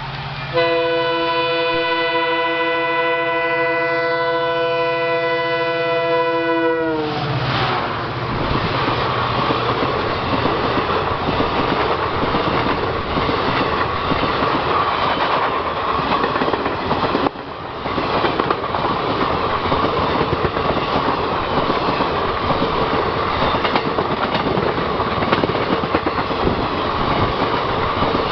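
WDP-4D diesel locomotive's air horn blowing one long blast of about six seconds, several tones sounding together, its pitch sagging as it cuts off. Then the loud, steady rush and rumble of the express train's wheels on the rails.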